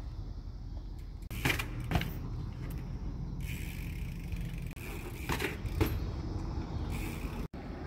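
BMX bike on concrete: two sharp clacks as the bike is handled, then the bike rolling with a steady high whir and two more clacks as it rides over the slab.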